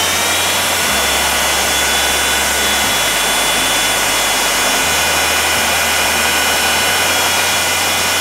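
Bosch GBS 75 AE belt sander running steadily at full speed with no workpiece: a steady high whine over the rush of the moving belt. The belt's tracking is being adjusted so that it runs centred on the platen.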